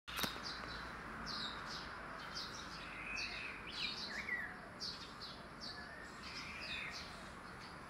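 Faint birds chirping: many short, high chirps over a steady hiss.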